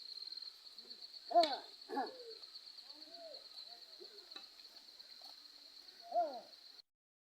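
Outdoor rural ambience: insects trilling steadily at a high pitch, with a few short bird calls, louder about a second and a half in, at two seconds and near the end. The sound cuts off suddenly near the end.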